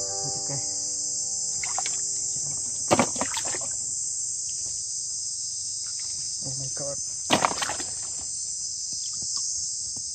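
A steady high chorus of insects buzzing, with water splashing twice, about three seconds in and again about seven seconds in, as hands move and lift a catch in the shallow muddy pond water.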